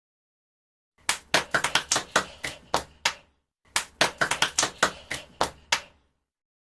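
Hands clapping in two quick runs of about ten claps each, with a short pause between them.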